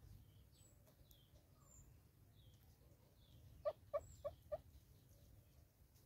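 Southern red-billed hornbill giving a short series of four quick clucks, a little past halfway.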